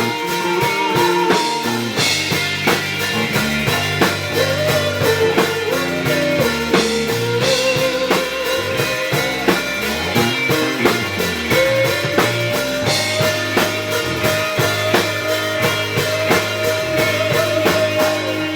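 Rock band playing with guitars and drum kit: a held lead line that bends and wavers rides over steady drum hits and bass.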